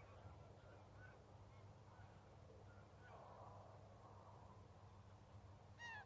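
Quiet riverside ambience with faint small bird chirps, and near the end a single short honk from a Canada goose.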